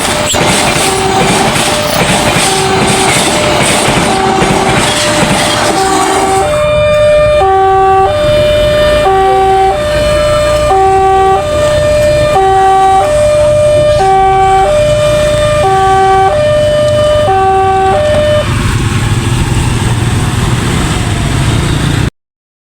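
Railway level-crossing warning siren, hoarse, sounding a two-tone hi-lo alternation about once every one and a half seconds. For the first six seconds or so it is partly covered by the noise of the passing train. The siren stops about eighteen seconds in, leaving a low rumble until the sound cuts off near the end.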